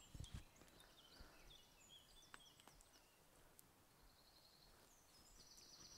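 Near silence with faint birdsong: many short, high chirps and trills from small songbirds, a little louder near the end. A soft low thump sounds just after the start.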